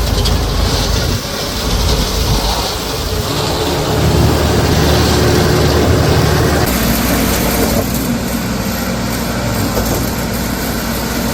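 Engine of heavy concrete machinery running loudly and steadily. The sound changes abruptly about three seconds in and again about six and a half seconds in.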